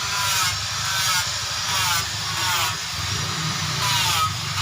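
A motor-driven grinder working the steel blade in repeated passes, about every two-thirds of a second, over a steady motor hum.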